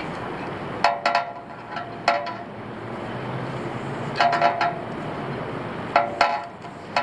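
Light metal clinks with a brief ring, in four short clusters, as the rope pulls the metal rigging hardware against the aluminium pole.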